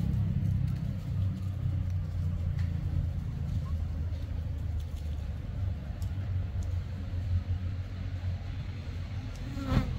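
A low, steady outdoor rumble, with one sharp click near the end.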